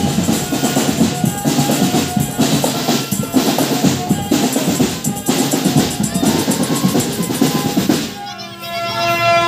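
Marching drum band playing snare and bass drums in a dense, fast rhythm. The drumming stops about eight seconds in, and a few held, pitched notes follow near the end.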